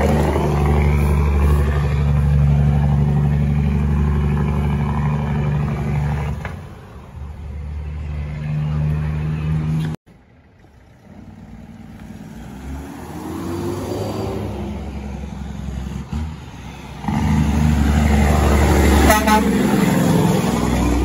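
Heavy diesel truck engines running under load. The sound drops away suddenly about halfway through, an engine rises in pitch, and then loud engine sound returns, with a short horn toot near the end.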